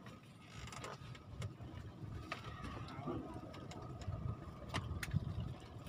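Light mechanical whirring with scattered sharp clicks, over a constant low rumble.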